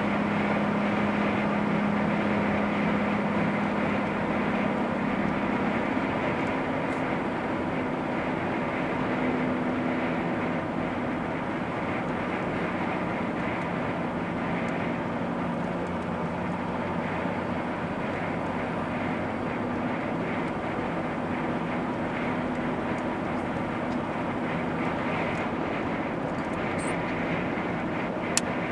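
Steady engine and tyre noise of a car driving at speed along an open road, with a low engine hum that is strongest in the first few seconds. A single sharp click comes near the end.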